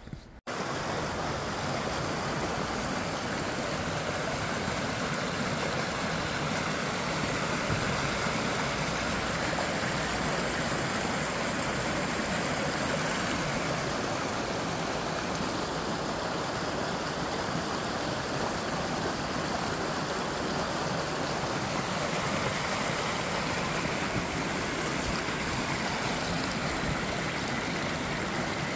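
Small rocky brook rushing over stones and a low cascade: a steady, even rush of running water.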